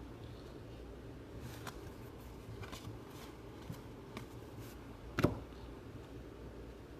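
Trading cards being handled: soft sliding and small clicks as cards are moved and set down, with one sharper click about five seconds in, over a faint low hum.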